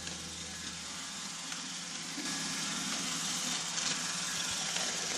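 Robot vacuum cleaner running: a steady whirring hiss of its fan and brushes, a little louder from about two seconds in.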